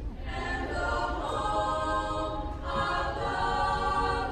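Mixed choir of girls' and boys' voices singing together, holding long chords, with a short break for breath between phrases about two and a half seconds in.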